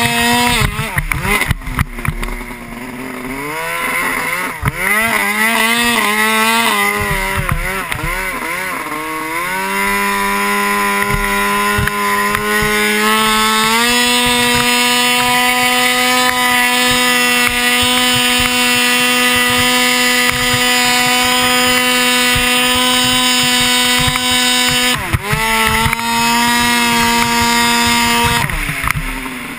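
Turbocharged Arctic Cat M1000 snowmobile's two-stroke engine under load in deep powder. For the first several seconds it revs up and down, then it holds a steady high pitch, stepping up once, dips briefly, and drops off near the end.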